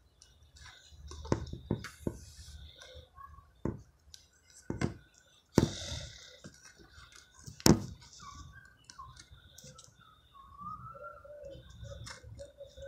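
Handling noise: a series of sharp clicks and knocks, the loudest two about five and a half and seven and a half seconds in. Faint wavering calls follow in the last few seconds.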